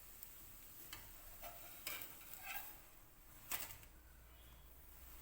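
Millet dosa sizzling faintly on a hot pan as its second side crisps, with a few sharp utensil clicks and scrapes, the loudest about three and a half seconds in.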